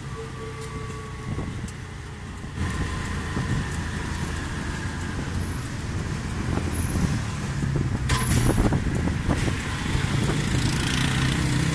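Small engine of an auto-rickshaw running as it drives along a street, a steady low hum with road noise, growing somewhat louder after a couple of seconds, with a few sharp clicks about eight seconds in.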